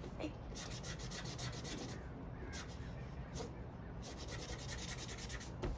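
Mr. Sketch felt-tip marker scrubbing back and forth on paper while colouring in, in quick runs of strokes about ten a second with short pauses between them.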